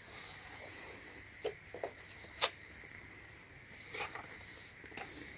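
Rubbing and rustling of a small switch box being handled, with a few sharp light taps and clicks.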